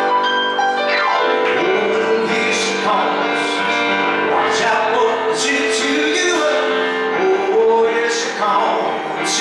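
A man singing into a microphone while playing piano, a live piano-bar performance, with long held notes that waver.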